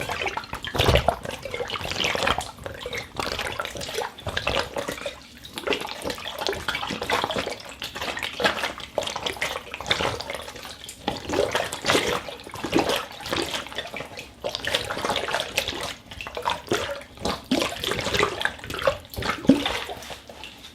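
Rubber gloves worked and squeezed by hand in a rapid, irregular stream of wet-sounding squishes and slaps. The sound is made as a foley effect for a school of fish.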